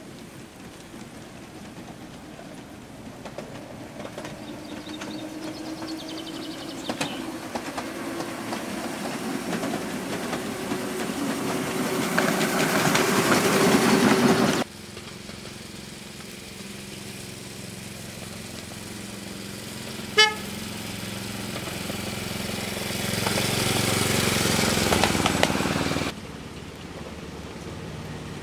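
A 7.25-inch gauge miniature diesel-outline locomotive running towards the listener, its engine and wheels on the rails growing steadily louder. The sound cuts off suddenly and then builds again. About twenty seconds in there is one short horn toot.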